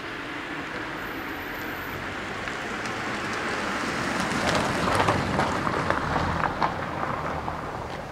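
A car passing close by: its tyre and road noise swells to a peak about five seconds in, with a scatter of small clicks and crackles from the tyres on the road surface, then fades away.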